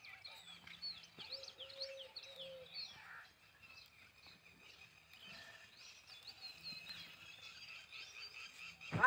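Faint chirping of small birds: many short rising and falling chirps, thickest in the first three seconds and again near the end, over a faint steady high tone.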